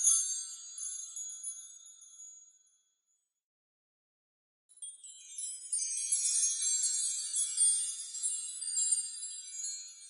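Fairy dust magic sound effect: a shimmer of many high, tinkling chime-like tones that fades away over the first couple of seconds, then a short silence, and a fresh sparkling shimmer starting about halfway through that carries on.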